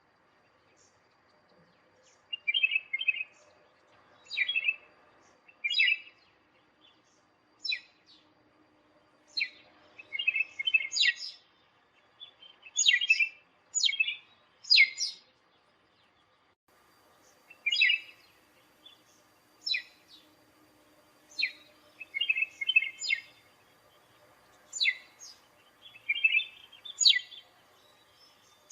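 Hodgson's redstart calling: short high notes, some sweeping steeply downward, mixed with quick chattering clusters of notes, repeated every second or two with brief pauses between.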